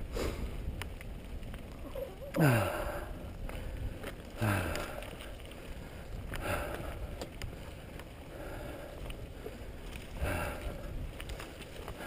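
A mountain bike rolling over a dirt singletrack, a steady low rumble, with the rider's heavy voiced exhales about every two seconds, each falling in pitch; the loudest comes about two and a half seconds in.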